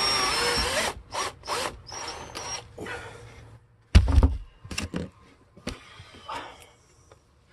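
Power drill driving a screw into a wooden floor board, its motor whine dropping in pitch and stopping about a second in. Then scattered clicks and knocks of handling, with one loud thump about four seconds in.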